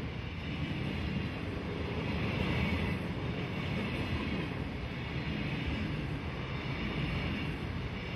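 Container freight train's wagons rolling past, a steady rumble with wind noise on the microphone.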